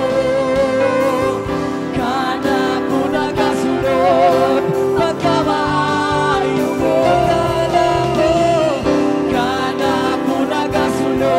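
Live praise-and-worship band: several vocalists singing a worship song together over guitars and keyboard, amplified through the stage sound system.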